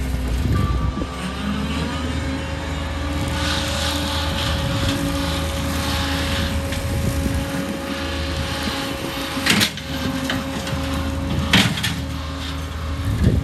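An engine-driven machine running steadily with a constant drone. Two sharp knocks sound in the latter part.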